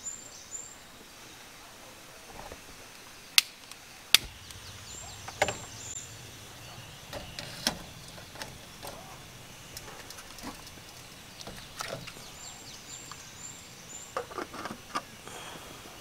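Sparse light clicks and knocks of camping gear being handled, with two sharp clicks a few seconds in. A bird repeats a short run of high chirps three times.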